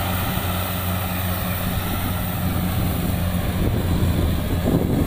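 Rice combine harvester's diesel engine running steadily at working speed, a constant low drone with mechanical noise over it, growing slightly louder near the end.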